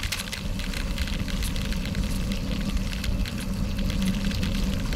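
Gravel bike rolling at about 20 mph on a packed dirt-and-gravel road: a steady low rumble of wind and tyres on the bike-mounted action camera's microphone, with many small clicks and rattles from grit and the bike.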